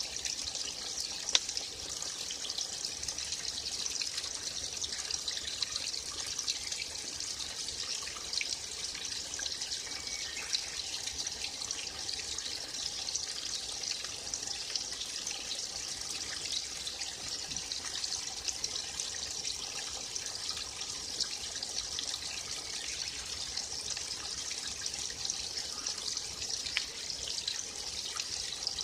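Small forest stream trickling and splashing steadily, with one brief sharp click about a second in.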